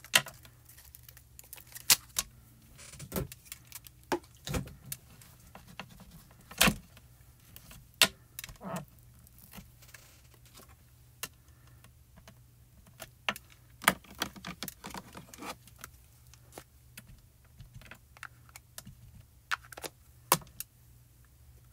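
Irregular light clicks, taps and plastic crinkles from clear photopolymer stamps being handled in their plastic sleeve and set on an acrylic stamping block.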